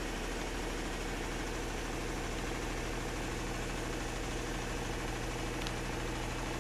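Steady mechanical hum of a high-pressure aeroponic system running a spray cycle: the pump and the energized zone solenoid valve, with an even hiss behind the hum.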